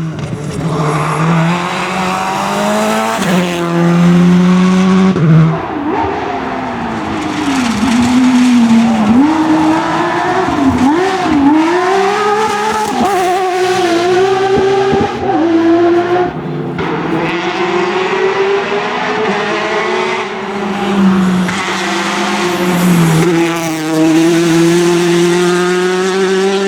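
Rally cars driven hard on a stage, engines revving high, dropping and climbing again through gear changes, with tyre squeal. The sound breaks off and changes abruptly a few times as one car gives way to another.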